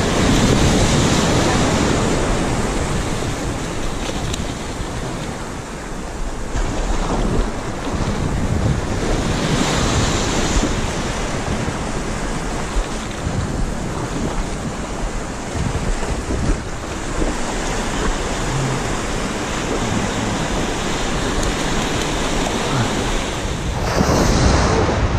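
Sea surf washing and breaking around a wading angler's legs, rising and falling as waves roll through, with wind buffeting the microphone.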